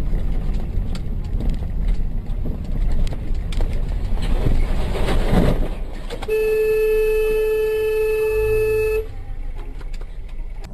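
Road and engine noise of a moving car, then about six seconds in a car horn sounds one steady note, held for nearly three seconds before cutting off sharply.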